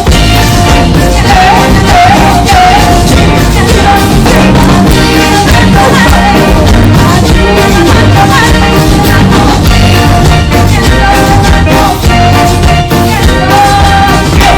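Loud, upbeat band music with a steady drum beat and a wavering melody line over it.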